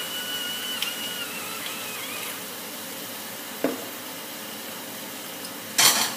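Chicken strips frying in olive oil in a pan, a steady sizzle. There is a brief knock about three and a half seconds in and a loud, short clatter near the end.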